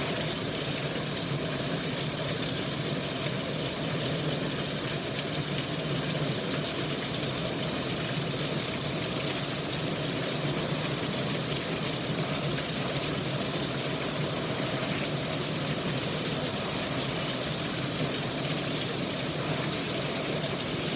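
Rain falling steadily, an even rushing hiss with no break.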